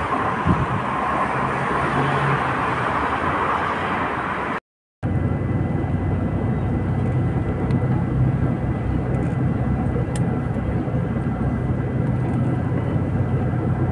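A vehicle engine running steadily, a low hum under a noisy rush of motion. The sound drops out completely for a moment about four and a half seconds in, then carries on much the same.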